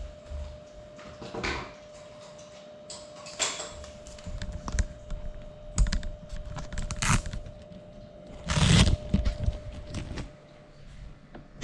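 Handling noise picked up by a small FPV drone's onboard camera: irregular clicks, knocks and rustles as the drone is picked up and carried, the loudest clatter a little before the end, over a faint steady hum.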